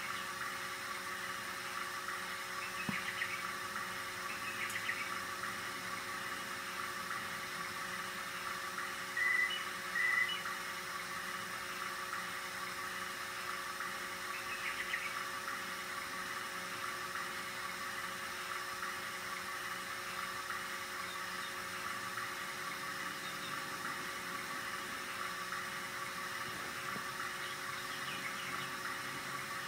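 RCA 3700F cassette deck's tape transport running: a steady mechanical whir from the drive motor, belt and capstan flywheel, with a steady hum beneath it. Two short high chirps stand out about nine and ten seconds in.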